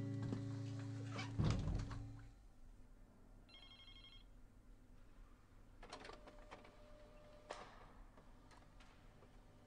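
Guitar music ends about two seconds in, then a short electronic telephone ring sounds once, about three and a half seconds in, followed by a few faint clicks and knocks in a quiet office.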